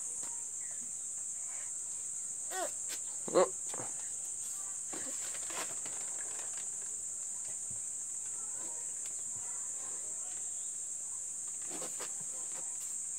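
Insects chirring in one steady, unbroken high-pitched drone. Two short voice sounds come a few seconds in.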